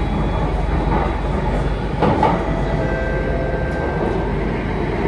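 Singapore MRT train running between stations, heard from inside the carriage: a steady rumble of wheels on rail with a faint whine. There is a brief louder knock about two seconds in.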